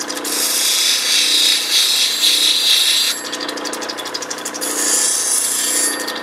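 Lapidary grinding machine running with a wet metal wheel, an opal pressed against it by hand. This gives a loud hissing grind for about three seconds, then a lighter pass of over a second near the end, while the motor's hum and fine ticking go on between the passes.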